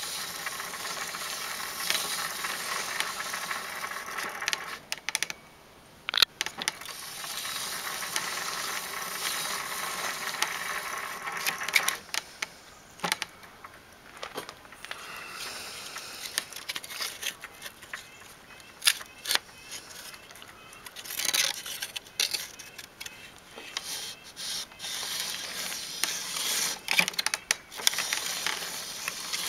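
Bicycle drivetrain turned by hand: the chain runs over the chainring and rear cassette with a rapid freewheel ticking, in two steady stretches. After that come intermittent sharp clicks and clacks of the pedals, chain and backpedal brake mechanism being worked.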